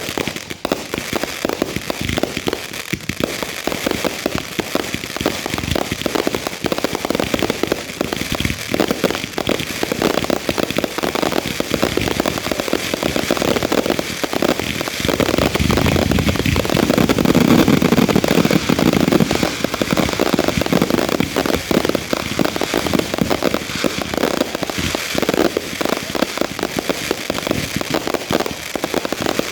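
Grand finale of consumer fireworks, 500 gram cakes and mortar shells, going off in a dense, unbroken barrage of bangs and crackling. It is loudest about halfway through.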